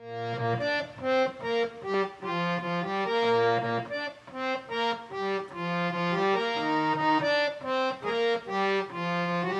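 Harmonium, a hand-pumped reed organ, playing a solo melody of evenly paced notes with a few low bass notes underneath.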